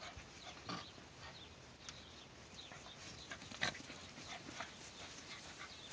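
Puppies play-fighting, with faint, scattered short puppy squeaks and yelps; one louder yelp comes a little past halfway.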